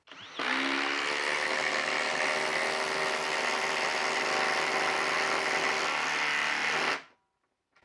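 Flex 24V brushless impact driver spinning up and hammering steadily as it drives a 4-inch lag screw into a wooden log. It stops abruptly about seven seconds in, when the screw is seated.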